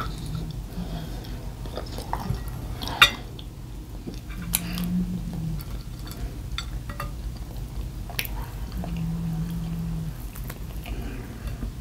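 A person chewing and eating breakfast food, with scattered small clicks of dishes and cutlery and one sharper click about three seconds in.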